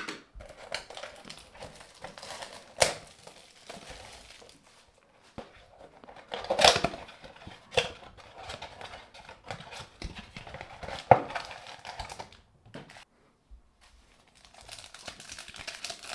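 Plastic shrink wrap crinkling and tearing as it is stripped off a Panini Optic trading-card blaster box, with several sharp crackles. Then the cardboard box is opened and a foil card pack is crinkled and torn open.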